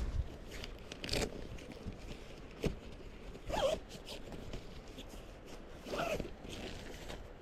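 Zipper pulled in a few short quick strokes, each a brief rasp that sweeps in pitch, with light handling rustles between.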